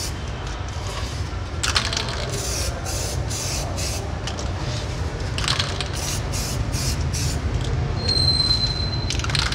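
Samurai Paint aerosol spray can spraying in short repeated bursts of hiss as the nozzle is pressed for pass after pass over a test panel.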